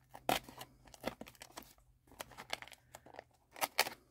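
Thin coffee-dyed paper coffee filter crinkling and tearing as it is pulled apart in the hands, in a series of short, irregular rustles.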